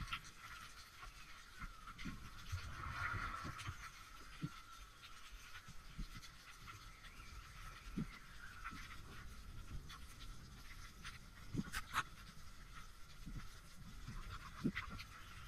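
Underwater sound picked up through a waterproof camera housing: a faint steady hiss with soft low thumps of water moving against the housing, and a few sharp clicks, two close together about twelve seconds in.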